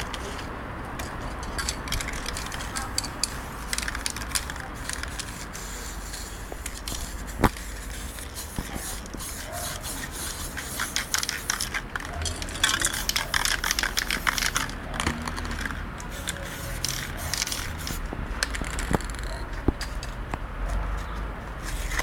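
Aerosol spray-paint cans hissing in short bursts, the longest and loudest near the middle, with handling noises and one sharp click about seven seconds in.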